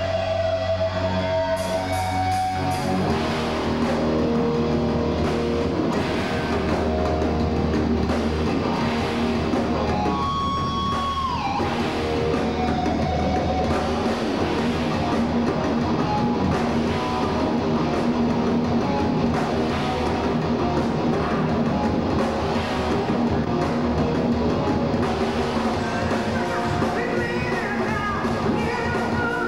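Heavy metal band playing live: distorted electric guitars over bass and a drum kit. Held low notes open, the drums come in about two seconds in, and a held high guitar note slides down around eleven seconds in.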